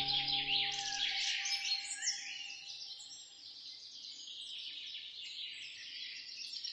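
Many small birds chirping and twittering at once in a dense, high chorus. A held music chord fades out in the first second.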